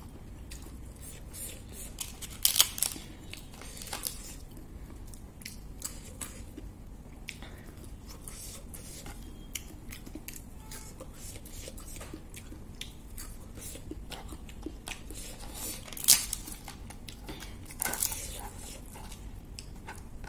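Crisp papad and lettuce being eaten by hand: crunching and chewing with many sharp crackles. The loudest come about two and a half seconds in and about sixteen seconds in.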